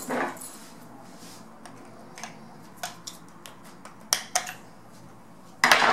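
Clicks and knocks of tools being handled while a sanding attachment is tightened onto a cordless drill. A few sharp clicks are spread over several seconds, two louder ones come a little past halfway, and a short louder rattling burst comes near the end.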